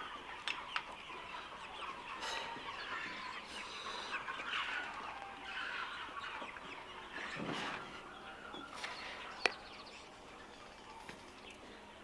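A shed full of young meat chickens, about three weeks old, calling together in a steady dense chatter of many overlapping birds. A few sharp clicks sound through it.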